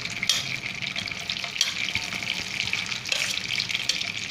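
Chopped onion frying in hot oil in a kadhai: a steady sizzle with sharp crackles now and then.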